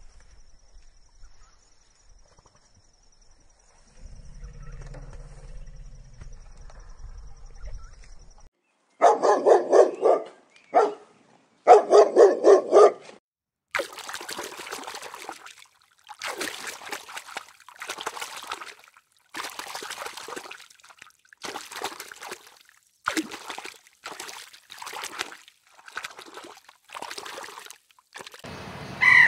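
A dog barking in two quick, loud runs, followed by a string of short rushing, breathy noises about a second apart.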